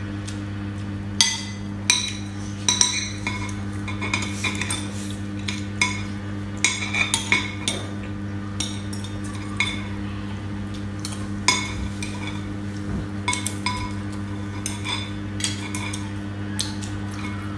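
Metal spoons and forks clinking and scraping on ceramic plates as two people eat, in irregular sharp clinks every second or so, some in quick clusters, over a steady low hum.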